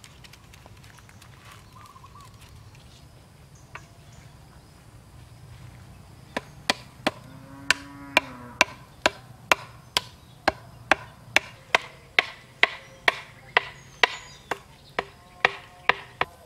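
Sharp wooden knocks, about two a second, starting some six seconds in and going on steadily: bamboo or wood being struck, like chopping.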